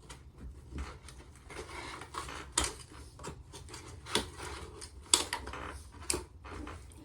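Plastic toy packaging and parts being handled while a Transformers figure is freed from its box: rustling broken by four sharp clicks and snaps.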